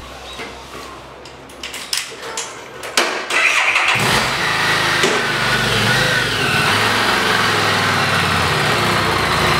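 Harley-Davidson motorcycle's V-twin engine being started: a few clicks, a brief crank on the electric starter, then the engine catches about four seconds in and runs steadily at idle.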